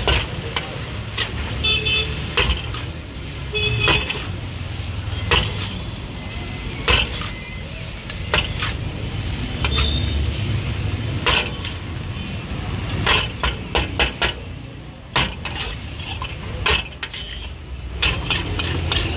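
Metal spatula scraping and clanking against a large iron wok as noodles are stir-fried and tossed, with light sizzling. The clanks come irregularly, about one a second, with a quick run of several near the end, over a steady low rumble.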